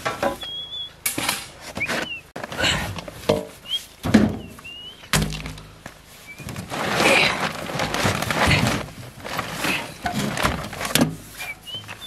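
Knocks, thuds and rustling of gear being shifted about in a metal hand cart, with small birds chirping briefly at the start and near the end.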